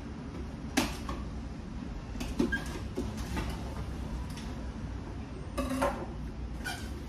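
Cardboard box and packing tape being handled and worked open: scattered scrapes, rustles and sharp clicks, with a longer scrape a little before the end.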